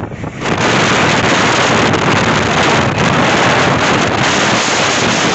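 Wind buffeting the microphone of a moving passenger train, over the train's running noise. It turns abruptly loud about half a second in and then holds steady.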